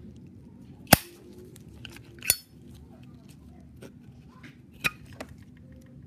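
Metal clicks and clinks from a Zippo lighter's case and insert being handled as the insert is drawn out: four sharp clicks. The loudest comes about a second in, the second has a brief scrape just before it, and the last two come close together near the end.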